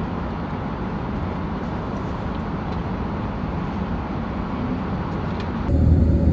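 Steady airliner cabin noise: the low, even rumble of the jet engines and air flow, with a few faint clicks. Near the end it turns suddenly louder and deeper, with a steady hum in it.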